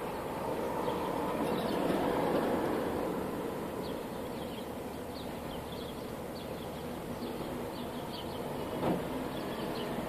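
Vehicle noise that swells and fades over the first few seconds above a steady traffic hum, with short high chirps of house sparrows scattered throughout and a single sharp knock about nine seconds in.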